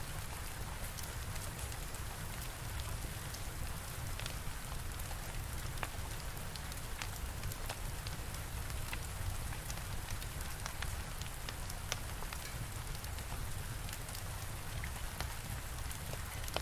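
Steady rain falling with a crackling fire, many small sharp pops scattered through an even hiss.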